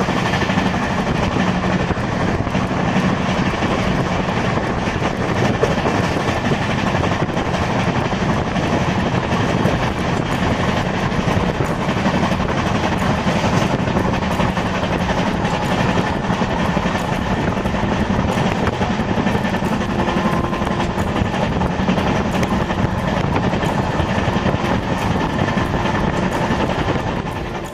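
Indian Railways express passenger train running along the track: a steady, even rumble of the moving coach with a faint hum.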